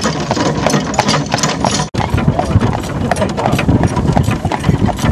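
A horse's hooves clip-clopping steadily on a paved lane as it pulls the cart, over the low rumble of the cart's wheels. The sound breaks off briefly about two seconds in.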